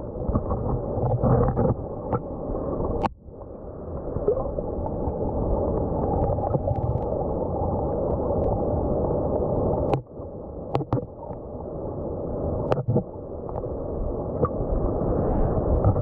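Mountain stream water heard through a submerged camera: a steady, muffled noise with nothing in the higher range. It cuts out abruptly with a click about three seconds and again ten seconds in, with another short dip near thirteen seconds.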